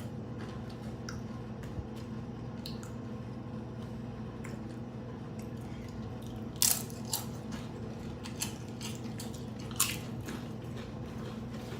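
Crisp fried corn tortilla being bitten and chewed close to the microphone: a handful of sharp crunches, the loudest about seven seconds in and another near ten seconds, over a steady low electrical hum.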